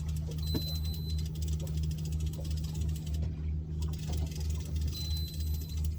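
Fishing boat's engine idling steadily, a low hum with a regular throb about twice a second. Two brief high beeps sound, one near the start and one near the end.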